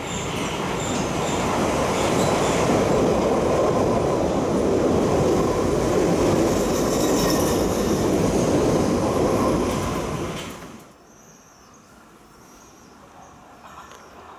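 London Underground train running past on the track, a loud, dense rush of wheel and rail noise that ends abruptly about ten and a half seconds in as the train clears.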